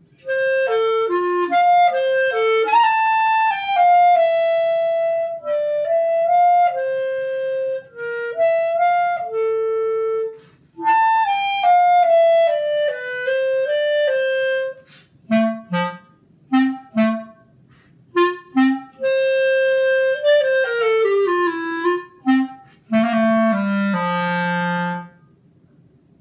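Solo clarinet playing a melody: a flowing line of held and falling notes for the first half, then short separated notes leaping between high and low register, a falling run, and a few low notes near the end.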